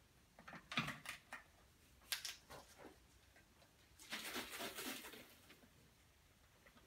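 A plastic trigger spray bottle being handled: a scatter of small clicks and knocks as its trigger head and bottle are worked, then a hissing rush lasting about a second, a little past the middle.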